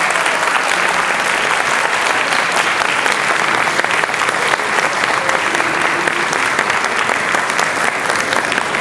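Audience applauding steadily, many hands clapping at once, echoing in a large hall.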